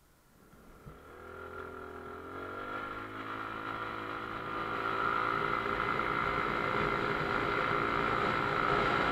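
Motorcycle engine pulling away and accelerating, its pitch rising over the first couple of seconds, with engine and wind noise growing louder until it runs steady.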